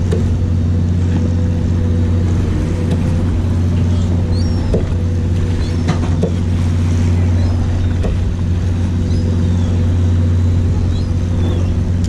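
Fishing boat's onboard engine running with a steady low drone, with a few faint clicks and knocks on deck.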